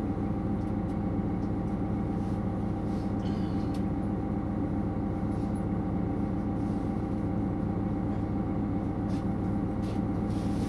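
Class 641 diesel railcar's engine idling steadily while the railcar stands at a station, heard from inside the passenger compartment as an even low hum.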